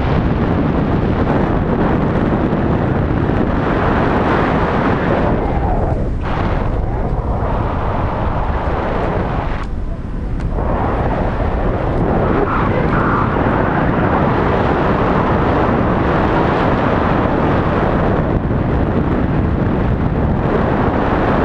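Wind buffeting the microphone of a pole-mounted action camera carried by a parasailer: a steady, loud rushing rumble that eases briefly twice, about six and ten seconds in.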